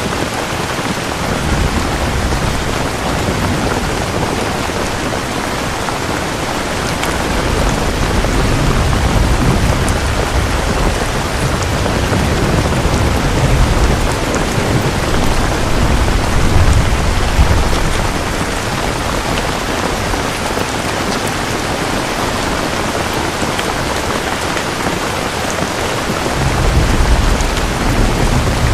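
Steady heavy rain falling, with deep low rumbles swelling up through the middle and again near the end.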